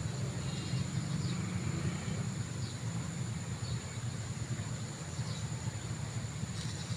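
Outdoor ambience: a steady low rumble, a steady high-pitched insect drone, and scattered short bird chirps.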